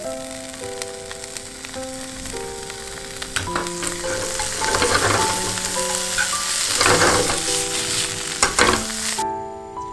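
Julienned carrots sizzling in hot oil in a nonstick frying pan, stirred with chopsticks, with a few louder stirring scrapes in the second half; the sizzle cuts off suddenly near the end. Gentle background music with held notes plays underneath.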